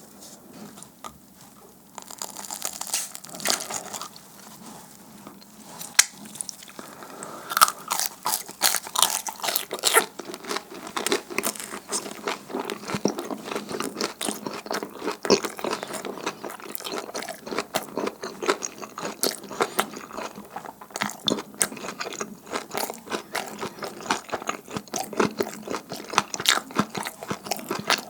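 Close-miked biting and chewing of chewy pan-fried dumpling hotteok. Fast, crisp, crackly mouth sounds start about a quarter of the way in and run thick and steady from there.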